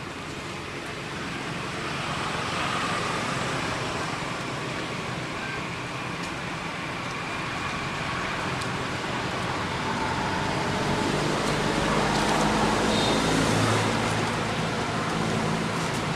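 Steady background noise of road traffic, with a low engine hum growing louder in the second half.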